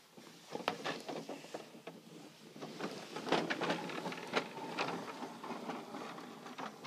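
Plastic Bruder Mercedes toy bin lorry pushed by hand along wooden floorboards: its wheels and plastic body rattle and click irregularly, busiest in the middle.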